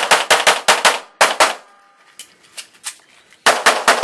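Rapid-fire pistol shots from a Limited 10 competition pistol: a string of about eight quick shots, a pause of about two seconds with a few faint pops, then another fast string starting near the end.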